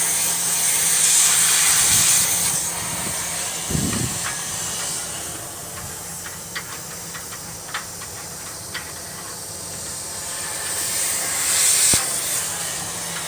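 Dryer-vent cleaning equipment running with a steady hiss of rushing air over a constant low hum, the hiss swelling louder at the start and again near the end. A few light ticks come through in the middle.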